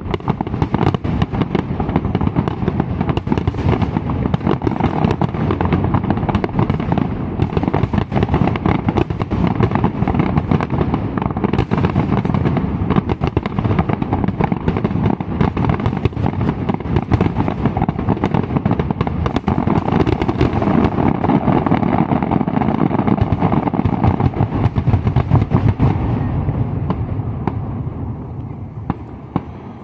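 Dense fireworks barrage: aerial shells bursting in rapid succession with continuous bangs and crackle, dying away over the last few seconds.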